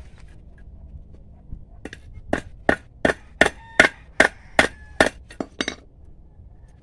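Hammer tapping a thin metal rod laid on a wooden board: about a dozen sharp strikes at roughly three a second, starting about two seconds in, several with a short metallic ring.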